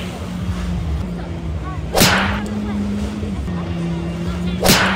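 Jet ski engine droning at a steady pitch as it pumps water up the hose to a flyboard, dropping to a lower steady pitch a little past halfway. Two loud whooshing swishes cut across it, about two seconds in and near the end.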